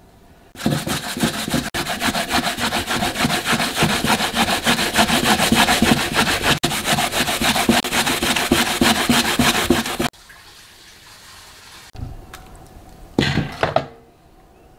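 Korean radish rubbed quickly back and forth on a plastic hand grater over a stainless steel bowl: a rasping scrape repeated in quick, even strokes that stops abruptly about ten seconds in. It is followed by a couple of brief, softer sounds near the end.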